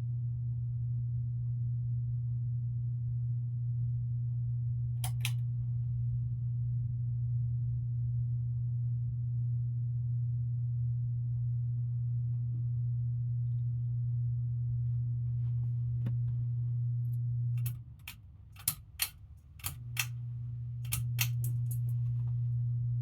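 Hampton Bay Littleton ceiling fan running with a steady low motor hum. Near the end its pull-chain switch clicks several times, and the hum cuts out for about two seconds before coming back, as the chain steps the fan through its settings. A pair of clicks also sounds about five seconds in.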